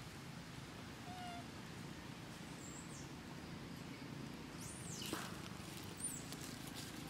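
Baby macaques giving faint, high-pitched squeaks, with one longer squeal that falls steeply in pitch about five seconds in, over a steady low background hum.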